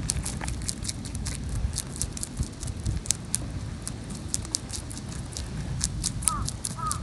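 A European rabbit chewing a crisp green leaf right at the microphone, heard as rapid, irregular crunchy clicks.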